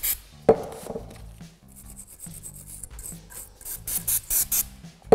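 Wire brush scrubbing a rusty steel brake caliper bracket wet with brake parts cleaner, in quick scraping strokes that are loudest in the second half. A single sharp knock about half a second in.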